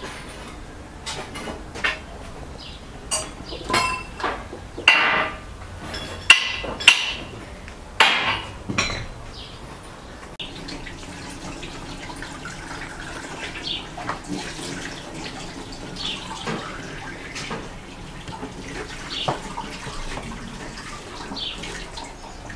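A series of sharp knocks and clinks of kitchen things handled on a wooden table, loudest about five to nine seconds in. After that comes quieter handling, with a few short chirps now and then that sound like birds in the background.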